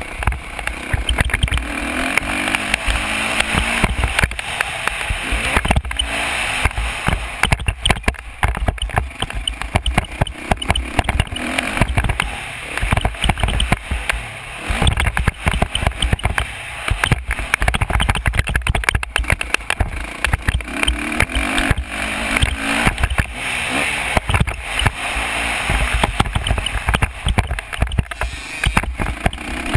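Dirt bike engine running under throttle, its note coming and going, largely buried under heavy wind buffeting on a helmet-mounted camera's microphone.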